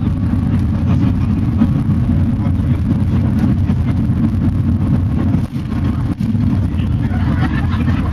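Steady low rumble inside a Shanghai Maglev (Transrapid) carriage travelling at speed, with two brief dips in level about five and a half and six seconds in.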